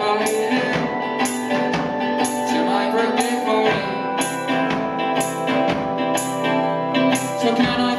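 Live rock band playing: strummed electric guitar over a steady beat of sharp cymbal or tambourine hits about twice a second, with a man singing.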